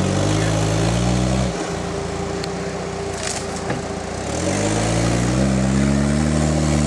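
Off-road buggy's engine revving hard as the buggy climbs a steep slope. The revs fall away about a second and a half in, with a few light clicks while it runs lower, then climb again a little after four seconds and hold high to the end.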